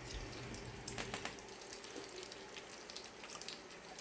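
Faint, steady sizzle of oil heating in frying pans, with a few light clicks.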